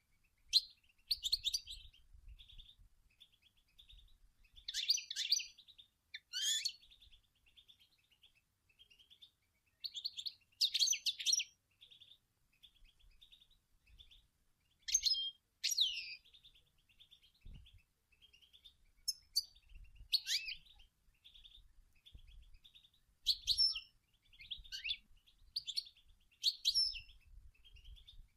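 European goldfinch singing: a continuous rapid twitter with louder, quick phrases and falling notes every second or two.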